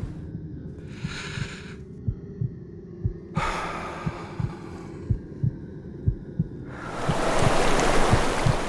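A heartbeat of low thumps, paired beats about once a second, under swells of rushing hiss. The hiss grows loudest near the end.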